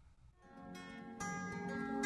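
Background music of plucked strings fading in about half a second in, growing louder.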